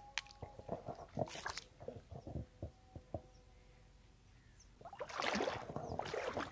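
Scattered soft knocks, then a loud rush of splashing water about five seconds in, as someone wades into a shallow, muddy river.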